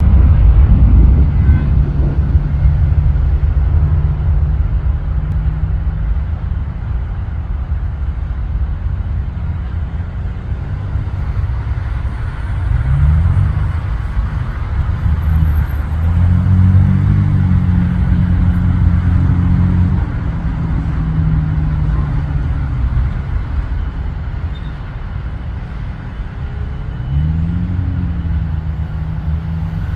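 Steady low engine rumble with engine notes that rise twice, about twelve seconds in and again near the end.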